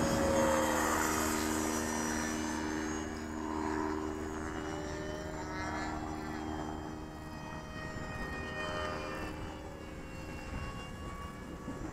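Freewing F-104 RC jet's electric ducted fan whining on a low pass. The whine glides down in pitch and fades as the plane goes by.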